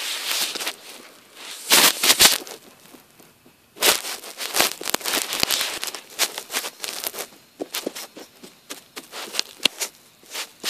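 Rustling, scraping handling noise from a phone camera being moved and rubbed close to its microphone over carpet, with irregular crackling bursts and clicks, loudest about two seconds in.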